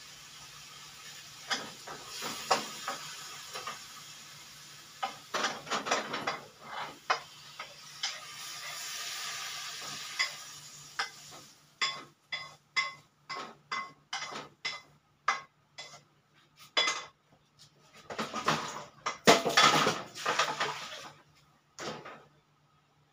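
Metal utensil clanking and scraping against a wok and pan, first over a steady frying sizzle that stops about halfway through, then as a run of separate clinks and knocks that gets busiest near the end.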